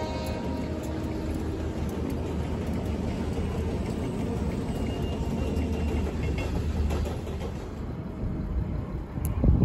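Diesel-hauled freight train passing: the locomotives, then covered hopper cars, rumble steadily along the rails, with the tail of the train horn dying away at the start. About eight seconds in the sound drops, and a brief low thump comes near the end.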